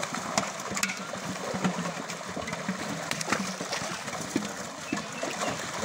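Water splashing and churning as many fish thrash at the surface inside a seine net hauled tight, with a dense run of quick slaps and spatters.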